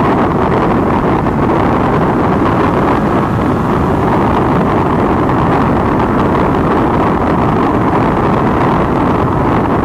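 Triumph Daytona 675's three-cylinder engine running steadily under heavy wind rush on the microphone as the motorcycle rides at road speed; a loud, even drone with no rise or fall.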